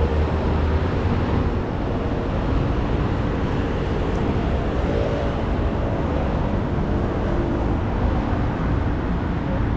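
Steady noise of road traffic on a multi-lane urban highway: cars and motorbikes passing, mostly tyre and engine noise.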